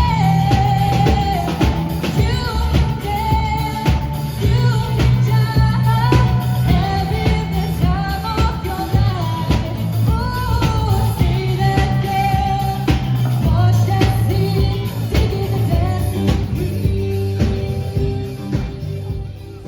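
A pop-rock song with a singing voice over drums, bass and guitar.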